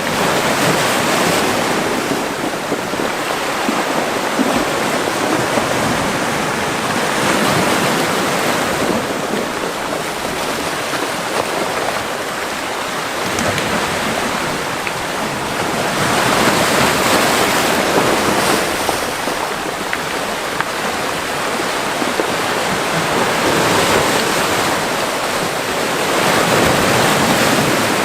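Mediterranean Sea waves washing into a cove, a steady rush of surf that swells and eases about every seven or eight seconds.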